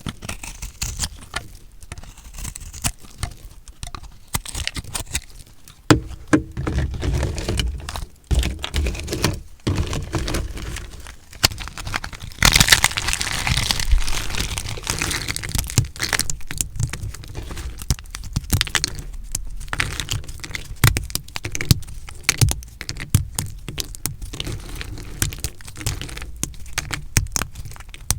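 A blade cutting through dry recycled soap, giving a fast run of crunching, crackling cracks, with a louder, denser stretch about halfway through.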